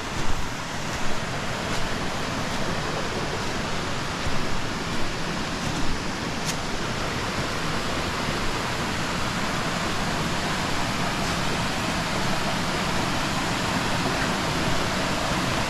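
Small two-tier waterfall, about four and a half feet tall, running at low water with a steady rush of falling water. A few short bumps sound over it in the first six seconds.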